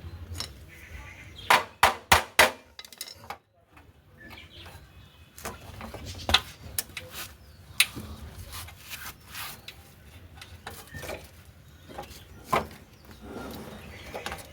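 Sharp knocks and clicks of tools and parts being handled during motorcycle chain and brake work: a quick run of four or five loud clicks about two seconds in, then single knocks every few seconds.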